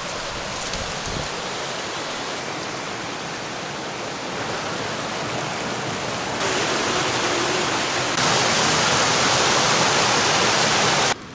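Rushing water of a waterfall, a steady roar that grows louder in two steps, about six and eight seconds in, then cuts off abruptly near the end.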